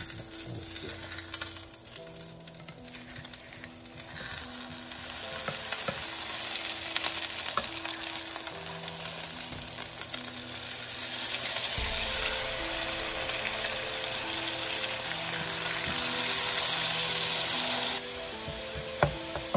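Eggs with chopped vegetables sizzling in a hot nonstick frying pan while a spatula stirs and breaks them up, with a few clicks of the spatula against the pan. The sizzle grows louder after a few seconds and drops off suddenly near the end.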